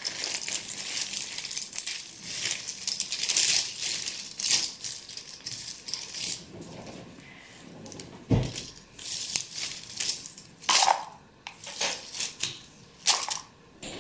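Cardboard jigsaw puzzle pieces being broken apart by hand and scattered on a granite countertop: an irregular rattling clatter of many small clicks and crackles, with a dull thump about eight seconds in.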